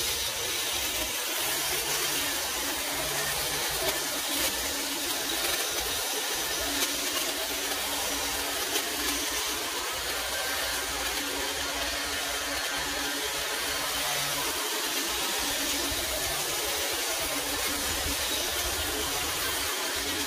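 Pole hedge trimmer running steadily, its cutter bar trimming an overgrown shrub.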